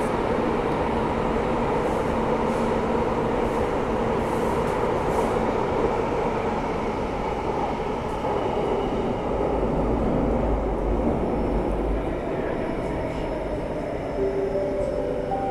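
Singapore MRT Downtown Line train running at speed, heard from inside the carriage: a steady rumble of wheels on rail with a hum from the motors. A deeper rumble swells briefly about two-thirds of the way through.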